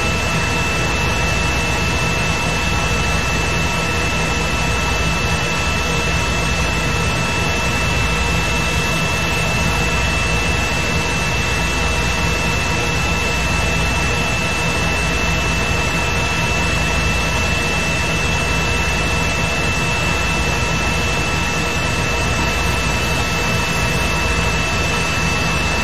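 Steady whirring noise with a constant high whine and a low hum underneath, unchanging throughout.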